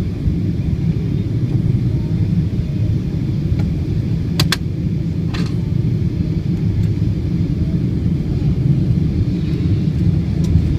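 Airliner cabin noise during the landing: a steady low rumble of engines and airflow, with two sharp clicks about four and a half seconds in and a fainter one a second later.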